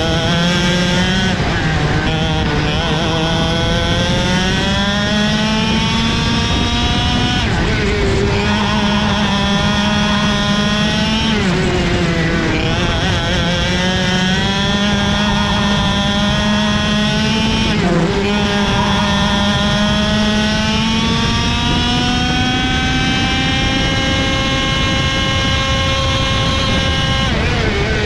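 Two-stroke racing kart engine heard onboard at full throttle. Its pitch climbs in long rising sweeps down each straight and drops sharply several times as the kart slows for corners.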